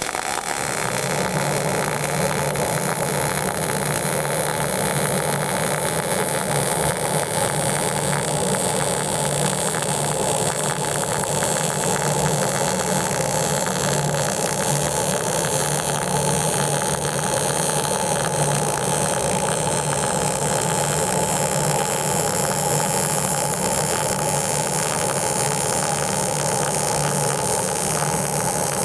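MIG welding arc, .030 ER70S-6 wire in 75/25 argon-CO2 gas at about 16.5 volts and 160 wire feed speed, running a steady crackling buzz as it lays a vertical-up root pass in bevelled 3/16-inch steel plate. The even, unbroken crackle is typical of short-circuit transfer.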